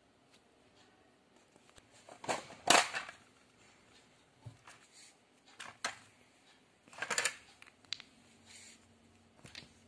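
Scissors snipping through tightly rolled newspaper tubes, with two sharp crunchy cuts about two to three seconds in. Softer scattered clicks and rustles follow as small plastic paint pots and the paper rolls are handled.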